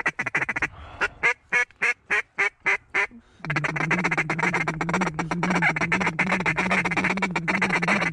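Mallard duck calling: a short run of fast chatter, then a string of about nine evenly spaced quacks. From about three and a half seconds in comes a fast, continuous feed chuckle.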